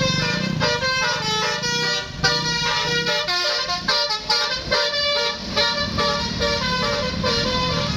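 Bus telolet horn: a tour bus's set of multi-tone air horns playing a quick melody of short stepping notes, one after another.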